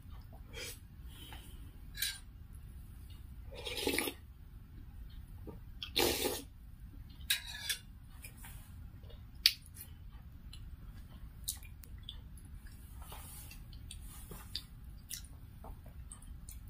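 Close-up eating sounds of finger-millet dhido and chicken soup eaten by hand: wet chewing and mouth smacks with scattered clicks, and two longer wet squelches about four and six seconds in.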